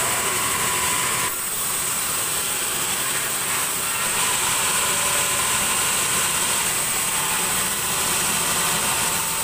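Band sawmill machinery running steadily without cutting: a continuous machine drone with a high hiss, which changes slightly about a second in.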